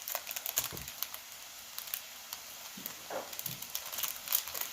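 Packaging crinkling and crackling in quick, irregular ticks as a wrapped item is opened by hand, with a few soft handling bumps.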